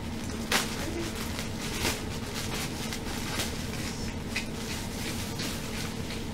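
Clear plastic wrapping bag crinkling and rustling as a handbag is worked out of it, in many short irregular crackles with two sharper ones about half a second and two seconds in.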